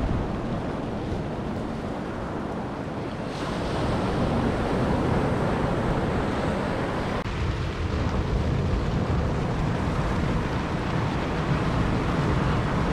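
Rough sea surf breaking on a sandy beach, with strong wind buffeting the microphone.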